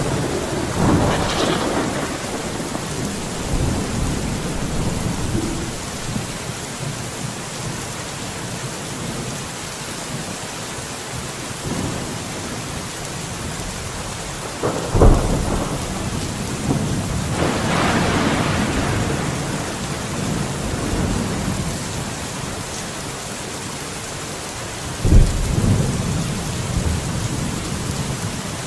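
Steady heavy rain with thunder. A rolling rumble comes about a second in. A sharp thunderclap comes about halfway, followed by a long rumble, and another sharp clap and rumble come near the end.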